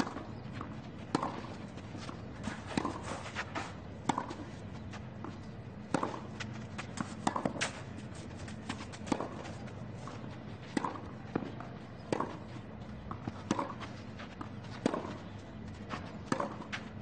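Tennis rally on a clay court: sharp racket strikes on the ball about every second and a half, alternating between the two players, with lighter ticks and shoe steps on the clay between them.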